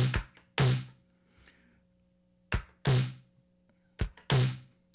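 Electronic drum-machine beat: heavy drum hits with short, sharp clicks between them, stopping for about a second and a half after the first second, then picking up again.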